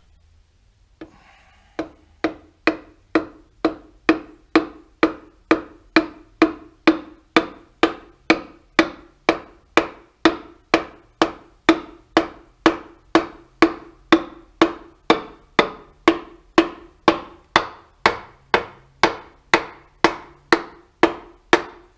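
A piston is being tapped down into the cylinder bore of a Renault Clio 182 engine block through a ring compressor with the wooden handle of a hammer. There is a steady run of short, hollow knocks, about two to three a second, starting about two seconds in.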